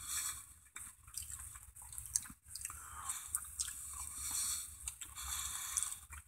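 A person chewing a mouthful of a barbecue chicken sandwich, faint and wet, with small irregular mouth clicks.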